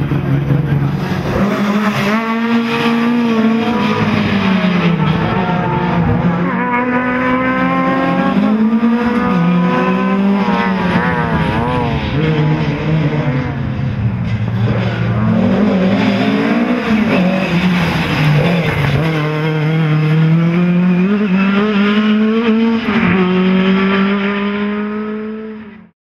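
Ford Escort BDA rally car's Cosworth BDA 16-valve four-cylinder engine revving hard. Its pitch climbs and falls again and again as it is driven flat out through the gears and lifts off for corners. The sound fades out near the end.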